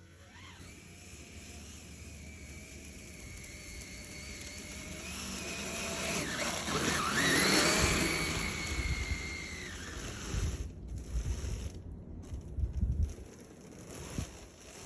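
A brushless-motored Kyosho Blizzard RC snowcat driving across snow: a high motor whine with track noise. It grows louder to a peak about halfway through, where the pitch dips and then climbs again, and fades toward the end.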